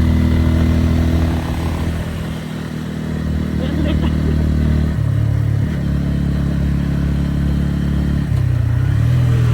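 Motorcycle engine running under way, with a steady low engine note that eases off about two seconds in, then changes pitch around five seconds and again near eight seconds.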